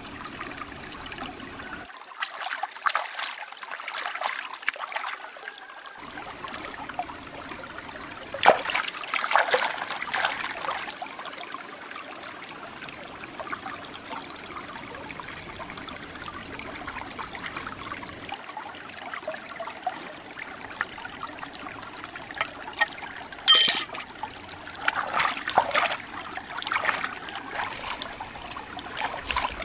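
Shallow stream trickling over rocks, with several bursts of splashing and dripping as hands rinse mushrooms and vegetables in the water. One sharp click comes late on.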